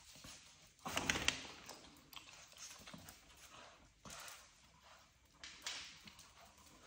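French bulldog puppies scampering on a hard laminate floor: quick, light clicks and taps of paws and claws, the busiest cluster about a second in.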